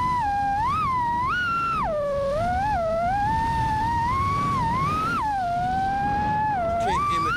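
FPV racing quadcopter's electric motors whining, one tone that rises and falls over and over as the throttle is worked, over a low rush of wind and props.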